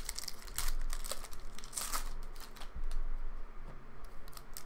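Panini Mosaic football trading cards being handled: flicked through in the hand and set down on a table, making irregular light clicks and rustles.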